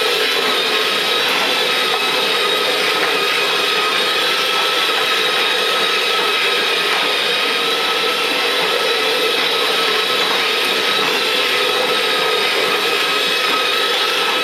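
Electric motor and gearbox of a battery-powered Thomas the Tank Engine ride-on toy train running steadily as it drives around its plastic track, a constant whine with several steady pitches and a rumble of plastic wheels.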